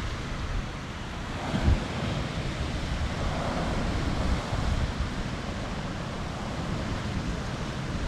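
Ocean swell washing and foaming over a rock ledge, with wind buffeting the microphone. There is a brief thump about two seconds in.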